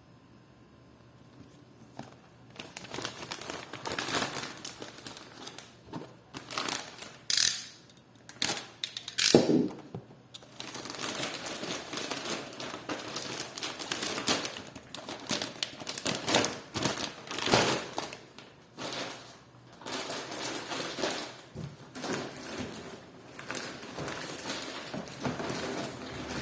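Plastic packaging crinkling and rustling as it is handled and unwrapped, with irregular clicks and small knocks. It starts about two seconds in and carries on in uneven bursts.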